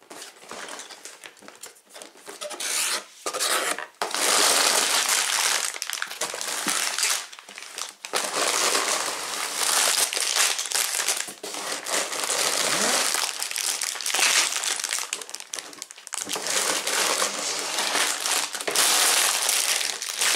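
Sealed plastic bags of Lego bricks crinkling and rustling as they are handled and lifted out of the set's box, in long loud stretches from about four seconds in, after quieter handling sounds at first.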